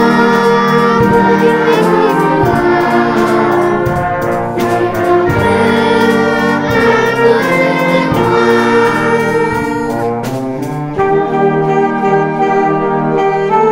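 A wind band of clarinets, flutes and brass plays a Christmas medley while a children's choir sings along.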